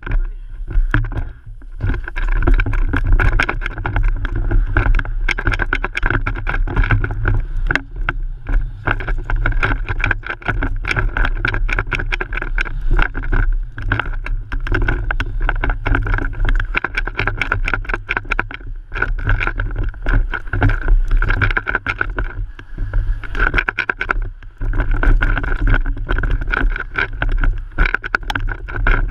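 Mountain bike ridden hard down a dirt trail, picked up by a homemade spinning GoPro rig: a constant low rumble with dense rattling and clattering over the bumps, and a steady high whine running under it. It drops briefly just after the start, then stays loud and busy.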